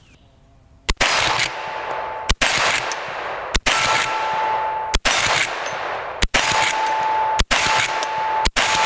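Marlin 1894 CST lever-action rifle in .357 Magnum firing seven shots in steady succession, about one every second and a quarter, starting about a second in. Each crack trails off in a long echo.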